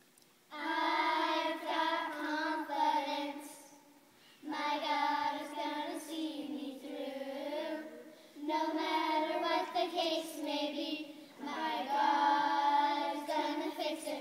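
A group of young children singing a song together in unison, in four phrases with short pauses between them.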